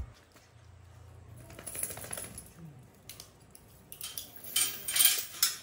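Metal chain leash clinking and rattling as the tethered black poodle moves about, briefly about two seconds in and louder and busier near the end.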